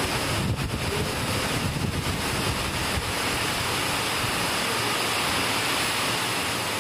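Heavy rain falling, a steady hiss, with wind buffeting the microphone as a low rumble in the first three seconds.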